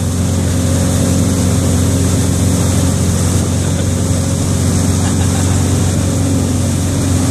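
Motorboat engine running steadily under way, under the rush of churning wake water.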